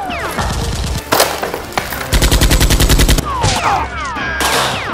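Gunfire sound effects: a single shot, then a rapid machine-gun burst lasting about a second, with falling-pitch whizzes before and after it.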